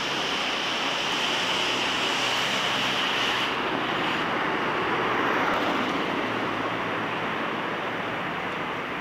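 Steady rushing background noise with no distinct events; its hiss thins out a few seconds in.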